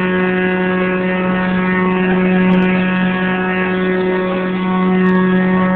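A steady machine hum holding one even pitch without change.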